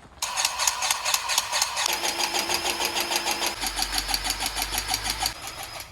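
Battery-powered grease gun pumping grease into a disc mower: a motor-driven pump running with a fast, even chatter of about ten strokes a second, starting abruptly.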